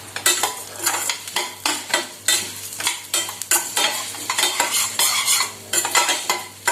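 Whole spices (black peppercorns, coriander seeds, dals and cumin) being stirred as they dry-roast in a little sesame oil in a pan. A quick run of scrapes and clicks against the pan, about two to three a second, over a light sizzle.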